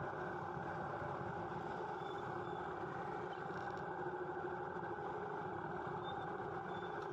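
Steady traffic noise from queued vehicles creeping toward a junction: engines running and idling, heard from inside a vehicle in the queue.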